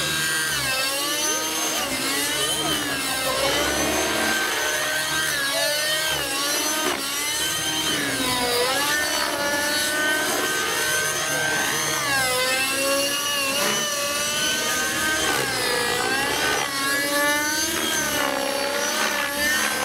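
Align T-Rex 600 nitro RC helicopter flying, its glow engine and rotors making a continuous high whine. The pitch rises and falls again and again as the engine and rotor speed change.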